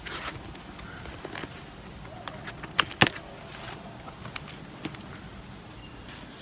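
Clicks and crackles of a small package being handled and opened, with two sharp snaps about three seconds in.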